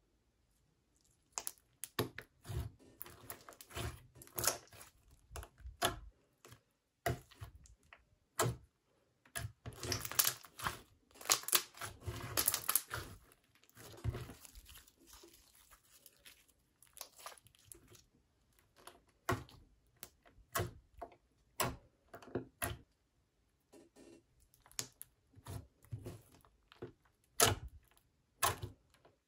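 Hands pressing, poking and stretching clear blue Elmer's Gue slime, making an irregular string of sticky pops and clicks that starts about a second in, with a denser run of crackling pops about ten to thirteen seconds in.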